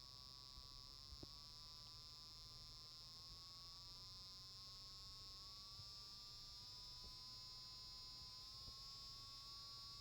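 Faint electronic buzz from a small speaker driven by a 555 oscillator and 7473 flip-flop circuit that imitates a motorcycle engine; its pitch creeps slowly upward as the simulated engine RPM rises.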